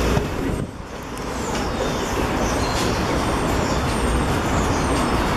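Steady outdoor traffic noise with a low rumble, dipping briefly a little under a second in.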